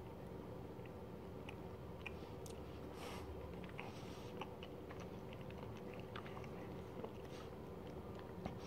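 Faint chewing of a crumbly Flake milk chocolate bar, with scattered soft clicks and crackles.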